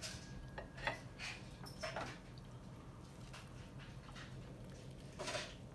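Quiet sounds of a person eating a fried mozzarella stick: a few small clicks and handling noises as it is lifted from the plate, then a bite and soft chewing, with one louder noisy sound near the end.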